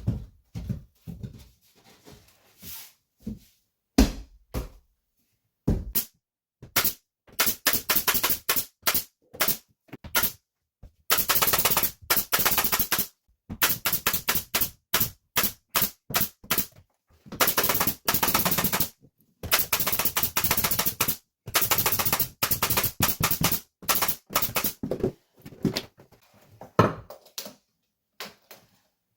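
A power fastening tool fixing gypsum board: runs of rapid, sharp rattling impacts lasting one to two seconds each, with scattered single knocks between them. The runs are densest in the middle stretch and thin out near the end.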